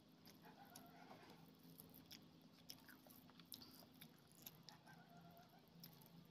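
Faint eating sounds: chewing, with scattered soft clicks as fingers mix rice into egg curry gravy on a plate.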